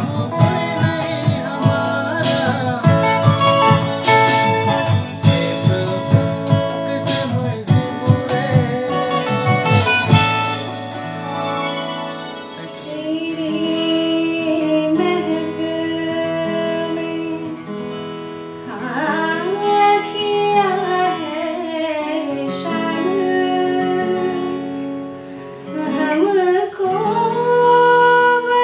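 A man singing while strumming an electric guitar, with sharp strummed strokes. About eleven seconds in it cuts to a young woman singing a slow melody with long held notes over a softer guitar accompaniment.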